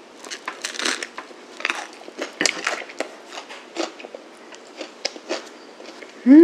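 Close-up crunching and chewing of a sandwich on crusty homemade campagne bread, a quick run of crisp crunches, ending in a short hummed "mm" right at the end.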